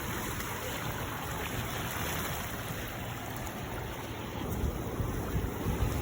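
Steady wind and water noise: an even rushing hiss with an irregular low rumble from wind on the microphone.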